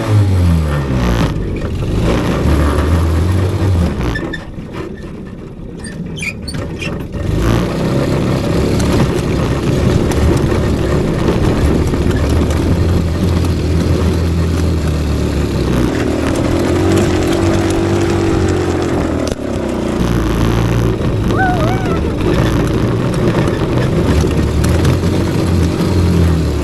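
Small petrol engine running at speed, its revs rising and falling, with a quieter dip about five seconds in.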